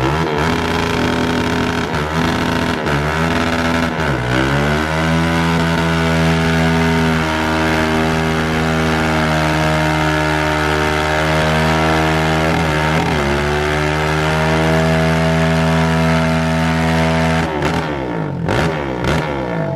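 Car engine revved hard and held at high, steady revs, dipping and climbing back a few times before the revs fall away near the end.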